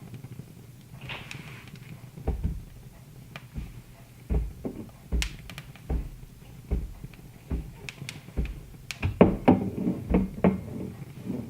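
Wood fire crackling, with irregular sharp pops and snaps over a low steady rumble, and a busier run of pops near the end.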